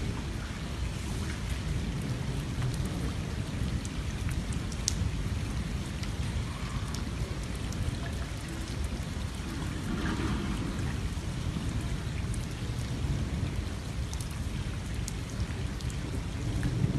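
Rain falling onto a flooded street: a steady hiss with a low rumble underneath and scattered sharp ticks of drops.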